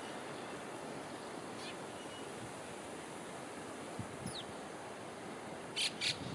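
Faint steady outdoor rushing noise, with a few brief high chirps (one falling, about four seconds in) and two short high hissing bursts near the end.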